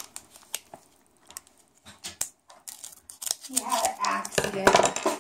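Foil Pokémon booster pack crinkling as it is cut open with scissors: a few faint sharp snips and rustles, then a person's voice near the end.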